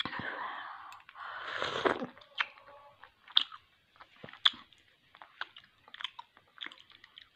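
A person slurping hot fish-and-moringa soup from a spoon twice in the first two seconds, then chewing, with scattered soft mouth clicks and smacks.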